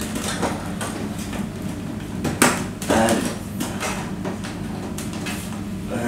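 Sheet-metal cover of an old VCR being pulled and worked at by hand: scattered clicks and rattles with one sharp knock about two and a half seconds in. The cover is stuck fast.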